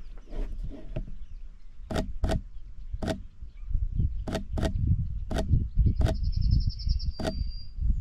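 Wind buffeting the microphone with a low, uneven rumble, broken by about eight sharp clicks, some in quick pairs. About six seconds in, a small songbird gives a rapid high trill, followed by a short high whistle.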